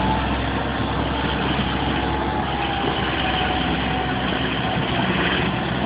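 A heavy engine idling steadily under a constant wash of noise.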